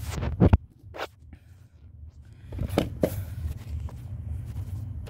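Handling noise from a tablet that is slipping and being caught: a few knocks and rubbing on the device, the loudest pair about half a second in and another pair around three seconds in, over a low rumble.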